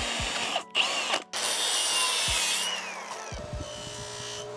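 Electric drill running, drilling a small cotter-pin hole through a foot peg pin. It stops briefly twice, then its whine falls away as it spins down a little over halfway through, leaving quieter knocks.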